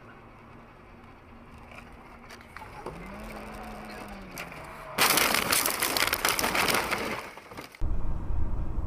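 A sudden vehicle collision recorded by a dashcam: about five seconds in, a loud crash gives way to about two and a half seconds of crunching and rattling. Near the end this cuts to steady, loud low road and engine rumble inside a moving car.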